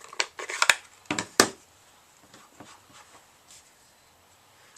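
Four or five sharp clicks and taps in the first second and a half as stamping supplies such as the ink pad and sponge are handled, then faint room tone.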